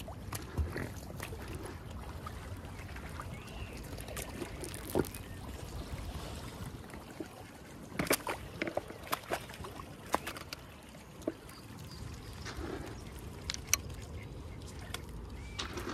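Swans feeding on the water: sloshing and dribbling at the surface, with a cluster of sharp clicks and taps about eight to ten seconds in and a few more near the end.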